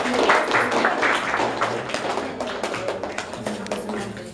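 A crowd clapping, loudest at first and thinning out toward the end.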